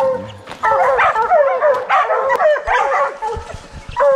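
Several bear hounds barking in a quick, overlapping run that starts about half a second in: the tree bark of hounds that have a bear up a tree.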